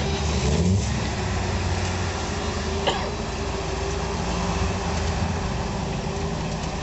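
Rock-crawling pickup truck's engine running at low revs as the truck crawls over boulders, with a brief rise in revs just under a second in. A single sharp knock about three seconds in.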